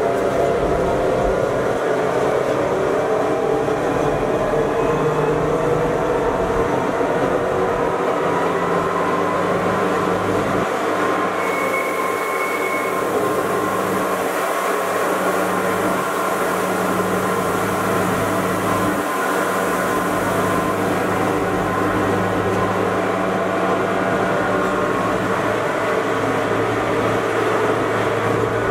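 Electric rack-railway train of the Gornergrat Bahn running uphill, heard from inside at the front: a steady mechanical hum and whine over rumbling wheel and rail noise. A high hiss joins for about ten seconds in the middle.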